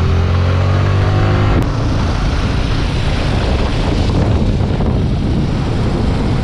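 Motorcycle engine running and gaining revs, its pitch rising for about a second and a half. It then cuts abruptly to a steady rush of wind and road noise from riding.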